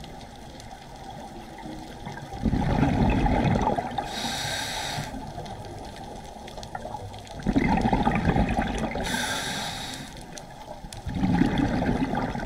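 Scuba diver breathing through a regulator underwater: a low bubbling rush from each exhale, then a shorter hiss from each inhale. The cycle repeats three times, about every four to five seconds.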